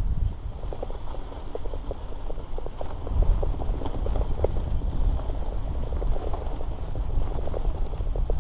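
Mountain bike rolling over rough, dry, bumpy ground: a busy patter of small clicks and rattles from the tyres and the bike, over a steady low rumble of wind on the microphone.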